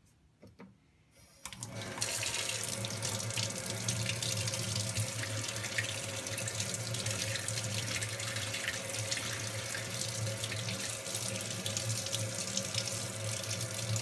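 Kitchen faucet running cold water over a Dyson vacuum filter into a stainless steel sink as the filter is rinsed out. The water starts about a second and a half in and then pours steadily.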